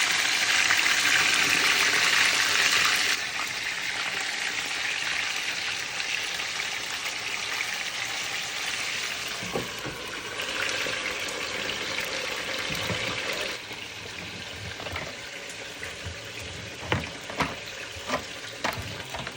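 Chicken frying in a pan of oil with a steady sizzle, loudest for the first three seconds and quieter after that. Several sharp knocks come near the end.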